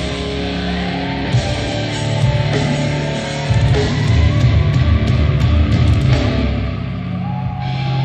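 Grindcore band playing live: distorted electric guitar riffing over a heavy low end, getting louder and denser about halfway through.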